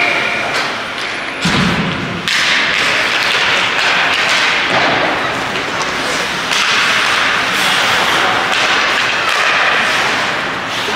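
Ice hockey play in a rink: sticks and puck clacking and skates hissing on the ice, with a heavy thud about a second and a half in.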